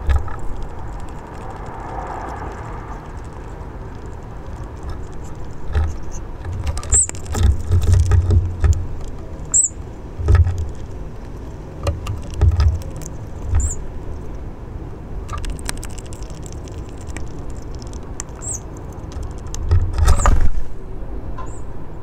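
Steady low outdoor rumble with repeated deep thumps. About six short, high-pitched bird call notes are spread through it, along with a few sharp clicks.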